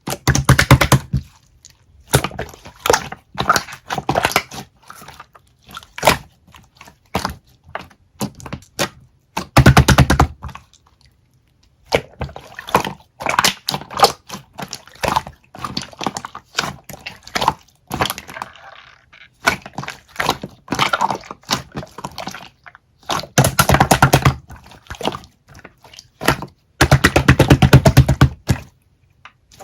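Slime being squished and pressed by hand, making crisp clicking and popping sounds, with several bursts of rapid crackling.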